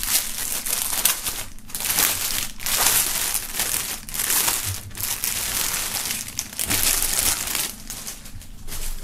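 Clear plastic film wrapping crinkling as hands pull it open and slide a folded jersey out, in repeated bursts of crackling that thin out near the end.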